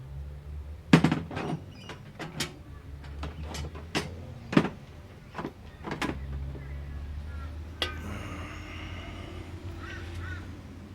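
A series of sharp metallic clicks and clinks from hand tools being handled: a socket being picked out and fitted to a torque wrench. The loudest knock comes about a second in, and the clicks thin out after about six seconds.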